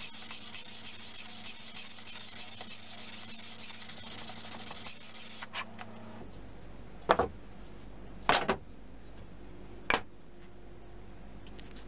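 A wooden board is hand-sanded with a folded sheet of sandpaper in steady back-and-forth strokes for about five seconds. After that come three sharp knocks, the loudest sounds here, as wooden pieces and hardboard are set down on the workbench.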